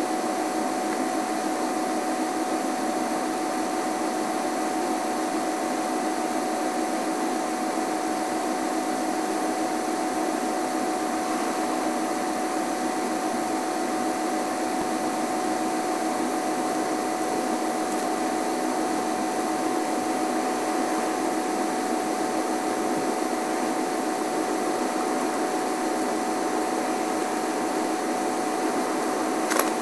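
Steady, even hiss with a faint constant hum tone and nothing else standing out, with one short click near the end.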